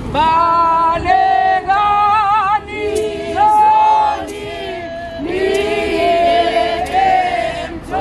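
Women's choir singing a Zulu hymn unaccompanied, the voices coming in together at the start and holding long notes in phrases, one voice with a wide vibrato about two seconds in.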